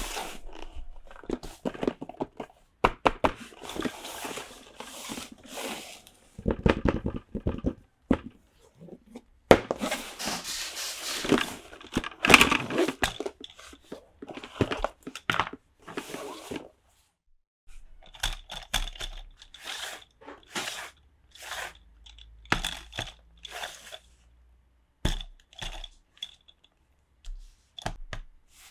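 Toy packaging being opened and handled: tearing and crinkling of wrapping, with small clicks and taps of plastic pieces that grow sparser in the second half.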